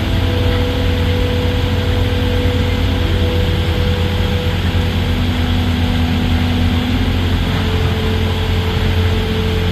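A large engine idling, a loud, steady low drone that holds without a break.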